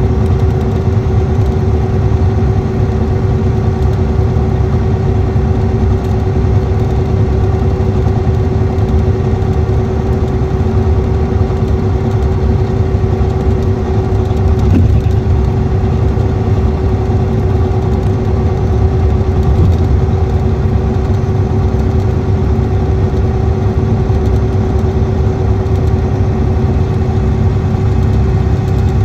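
Cummins ISX diesel engine of a 2014 Motor Coach Industries D4500CT coach running steadily: a deep rumble with a constant whine-like tone over it and no change in speed.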